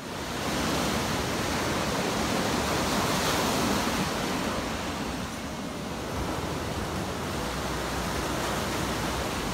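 Ocean surf: waves breaking and foaming water washing up the shore, a steady rushing that fades in at the start.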